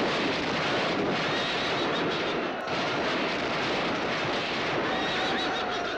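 Battle sound effects: a dense, steady din of gunfire and rumbling.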